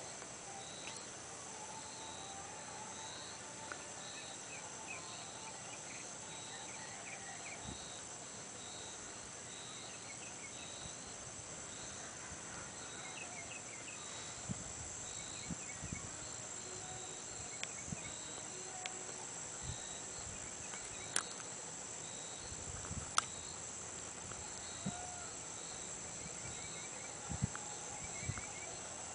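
Insect chorus: a steady high-pitched trill with a chirp repeating regularly beneath it, and scattered fainter chirps. A few sharp clicks stand out in the second half.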